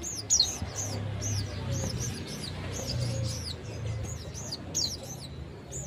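Spiderhunter (sogok ontong) calling in rapid bursts of high, sharp, arching chip notes, several a second, with short gaps between the bursts.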